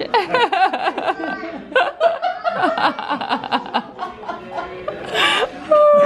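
A group of adults laughing together, choppy chuckles building to a louder burst of laughter about five seconds in, followed by one long falling vocal tone near the end.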